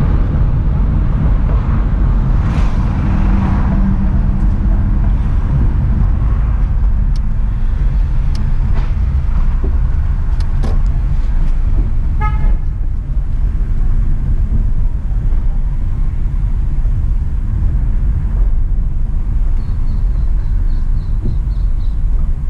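Steady low rumble of a car's engine and tyres heard from inside the cabin as it drives along a street, with a short horn toot about halfway through.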